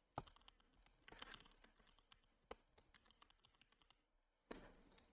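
Faint computer keyboard typing: scattered light key clicks as a short phrase is typed, with a slightly louder click near the end.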